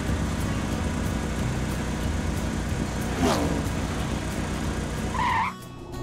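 Cartoon car engine sound effect running steadily, with a long falling whistle-like glide about halfway through and a short higher tone near the end, after which the engine sound drops away.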